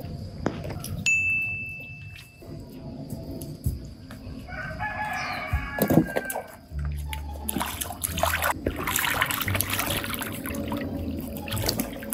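Water sloshing and a plastic pool liner rustling as a baby monkey climbs over the edge into a tarp-lined pool, loudest in the second half. About five seconds in, a long animal call with several pitched layers sounds.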